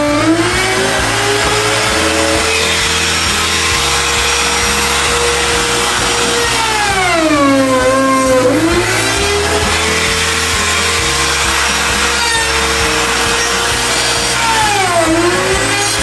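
Handheld electric trim router running at high speed and cutting into a plywood drawer front, routing the recess for a drawer lock. Its whine drops in pitch and recovers as the bit takes load: near the start, about halfway, and near the end.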